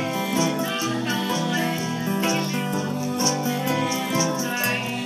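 Acoustic folk song played on plucked acoustic guitar, with a steady beat.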